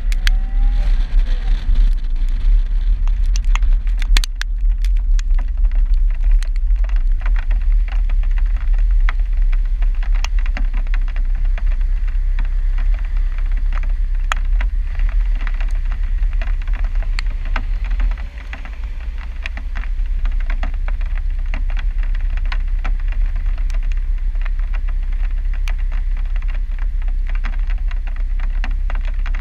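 Raindrops tapping irregularly and densely on a rear-mounted car camera, over a steady low rumble from the car.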